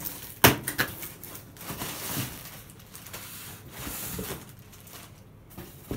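Cardboard shipping box being opened by hand: a sharp knock about half a second in, then rustling and scraping of cardboard flaps and packing tape that die down near the end.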